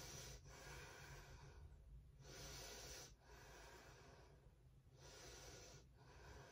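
A woman's faint, slow breathing, each breath a soft rush in and out, about three breaths in all.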